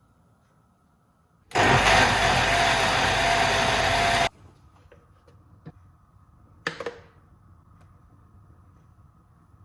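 A small electric kitchen appliance motor runs loudly and steadily for about three seconds with a steady hum, then cuts off abruptly. A brief clink follows a few seconds later.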